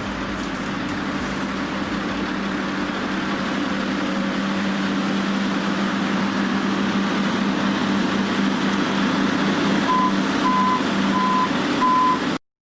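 Heavy machine's engine running steadily, with four short reversing beeps near the end; the sound then cuts off suddenly.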